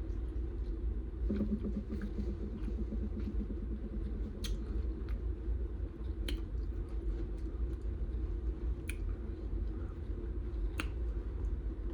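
A person chewing a mouthful of burrito close to the microphone, with scattered wet mouth clicks and smacks over a steady low background hum.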